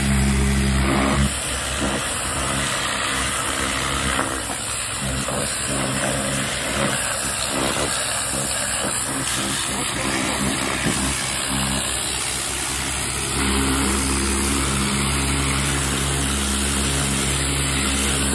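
A pressure washer's engine running steadily while the high-pressure water jet hisses against concrete steps and a curb. The engine's low hum is heavier for the first second or so and again over the last five seconds.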